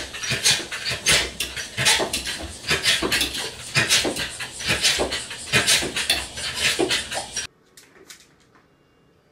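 Pembroke Welsh Corgi panting quickly in loud, repeated breathy pulses, about two or three a second. It cuts off suddenly about seven and a half seconds in, leaving only faint room sound.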